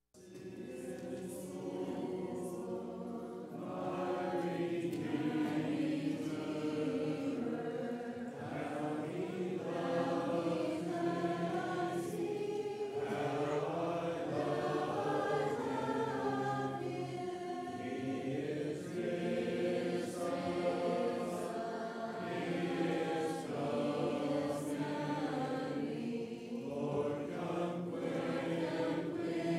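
A church congregation singing a hymn a cappella, many voices together following a song leader. The singing cuts in suddenly at the start.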